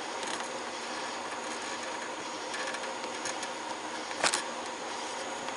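Steady background hiss with a faint hum, broken once by a sharp click or knock about four seconds in.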